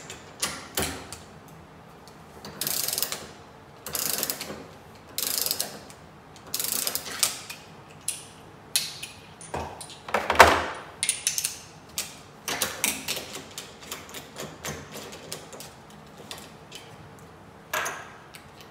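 Ratchet of a torque wrench with a deep well socket working the retaining nut off a CNC chip fan: repeated ratcheting strokes, a louder clunk about ten seconds in, then a run of quicker clicks.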